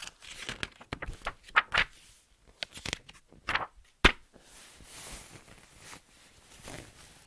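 Paper pages of a picture book being turned and handled: irregular rustles and swishes, with one sharp knock about four seconds in.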